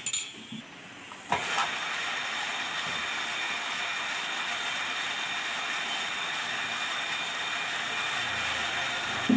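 Lathe doing a turning cut: a steady, even hiss that starts abruptly about a second in, after a few clicks, with a short knock at the very end.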